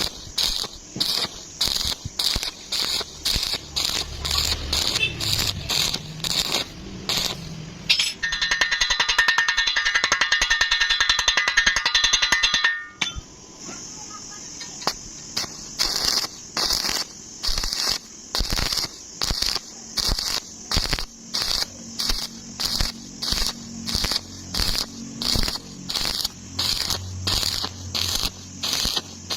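Electric arc welding: short crackling bursts of arc about twice a second, as in stitch or tack welding, broken by one continuous, louder weld bead lasting about four seconds starting about eight seconds in.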